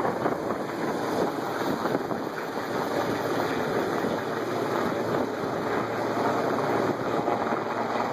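Helicopter flying overhead, its rotor and engine noise a steady rushing, with wind on the microphone.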